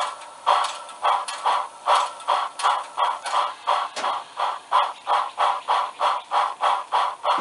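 Synthesized steam locomotive exhaust from a TCS WOW Sound model-train decoder: rhythmic chuffing with the cylinder cocks open, quickening from about two to about three chuffs a second as the locomotive picks up speed.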